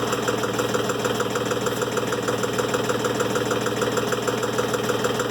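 Timberking 1400 sawmill's engine running steadily at idle between cuts, with an even, unchanging beat.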